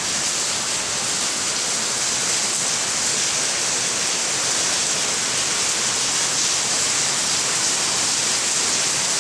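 Rain falling steadily, an even hiss that does not change or break.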